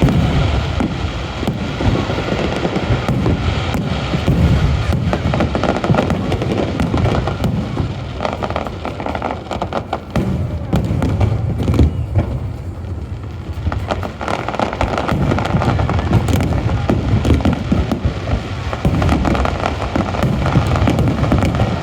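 Fireworks display going off without a break: a dense run of bangs and crackling, heavy in the low booms.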